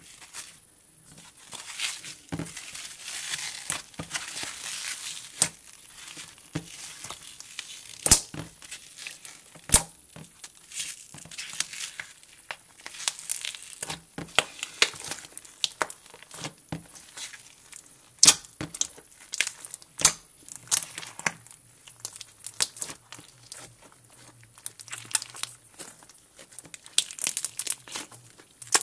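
Clear slime being mixed and squeezed by hand with cubes of melamine sponge to make jelly cube slime: sticky, squelchy handling noise broken by many irregular sharp pops and clicks.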